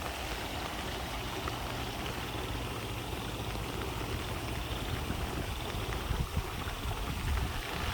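Steady rain and running water, with a low wind rumble on the microphone.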